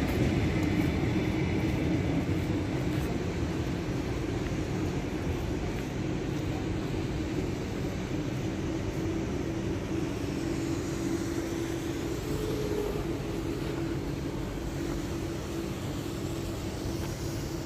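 Electric commuter train running at the platform: a steady rumbling noise with a held hum that fades slowly away.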